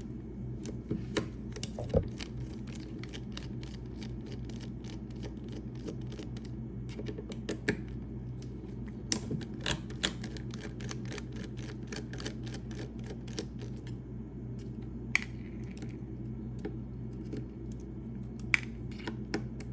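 Screwdriver with a Torx bit unscrewing screws from a rivet gun: a long run of small sharp clicks, a few a second, some louder, over a low steady hum.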